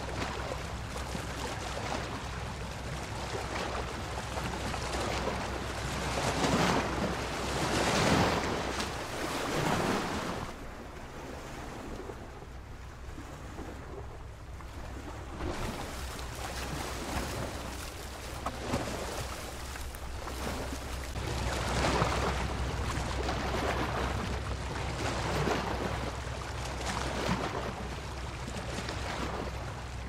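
Ocean surf: waves breaking and washing in as a rushing noise that swells louder twice, with a quieter lull between, over a steady low rumble.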